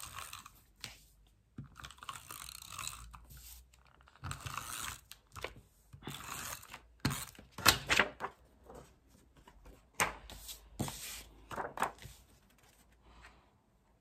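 Glue tape runner drawn across card stock in three short scratchy strokes, then card and paper handled and set down with sharp taps and rustles.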